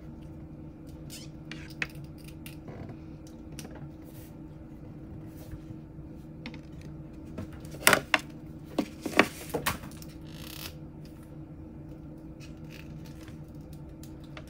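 Scattered small clicks and taps over a steady low hum, with a burst of several sharp knocks and clacks about eight seconds in.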